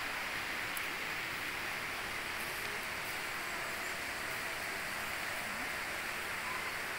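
Steady, even rushing noise of flowing water.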